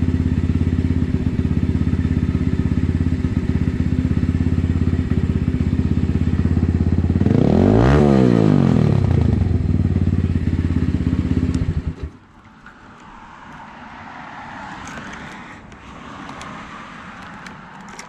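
Motorcycle engine running steadily, blipped once about seven seconds in so its pitch rises and falls back, then switched off abruptly near twelve seconds. Afterwards only faint rustling and a few light clicks.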